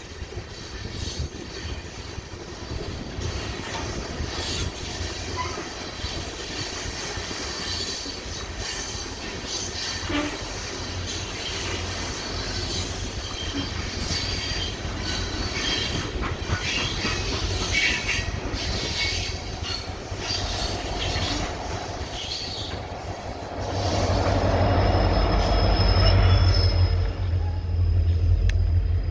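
Freight train of coal cars rolling past on BNSF track: wheels clattering over the rails with a thin, high wheel squeal above. A deeper rumble grows louder near the end.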